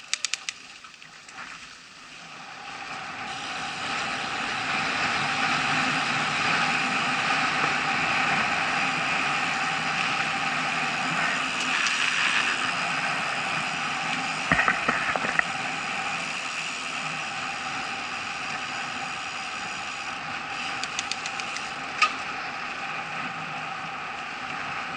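Mountain bike rolling fast down an asphalt lane: a steady rush of tyre and air noise that builds over the first few seconds as it picks up speed, with ticking and rattling from the bike. A short cluster of knocks about halfway through, likely the bike going over a bump.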